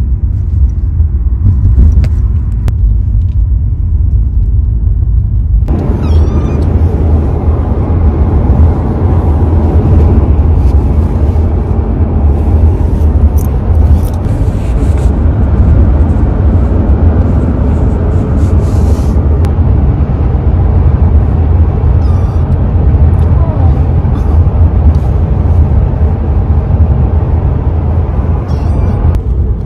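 Steady low rumble of road and engine noise inside a moving car's cabin. It grows fuller about six seconds in, with a few faint clicks and rustles.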